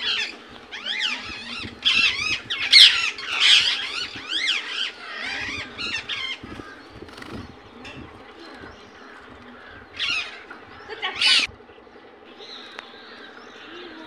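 Indian ringneck parakeet calling: a rapid string of sharp, arched chirps and squawks for the first six seconds, then quieter. Two loud single screeches come about ten and eleven seconds in, followed by soft warbling.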